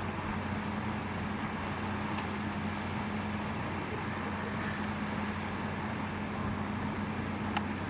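Steady background noise with a low, even hum, and one sharp click near the end.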